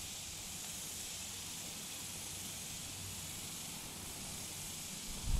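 Steady outdoor hiss with no clear pitch, and a brief low thump near the end.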